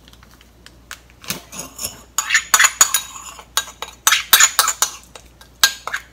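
Metal measuring spoon stirring gelatin powder into a little water in a small ceramic bowl, clinking and scraping against the bowl in quick, ringing runs. The clinks begin about two seconds in.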